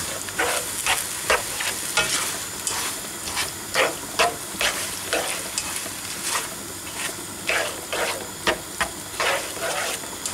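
Shrimp, bean sprouts and egg sizzling in a nonstick frying pan while a black plastic slotted spatula stirs them. Irregular scrapes of the spatula, about one or two a second, sound over a steady frying hiss.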